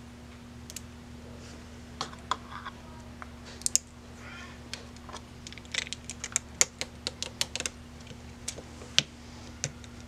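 Irregular plastic clicks and snaps from a Ring Video Doorbell being lifted off and clipped back onto its mounting bracket, busiest a few seconds in.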